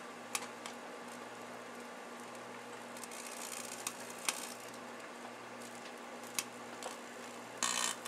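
Microwave ovens running with Christmas light strings inside: a steady low electrical hum, broken by sharp snaps of arcing. There are a few single cracks, a faint crackling stretch in the middle, and a short loud burst of crackling near the end.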